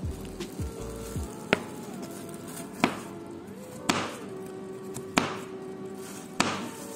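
Chef's knife chopping through garlic cloves onto a cutting board: five sharp single chops, about one every second and a quarter, with a few lighter knife taps in the first second.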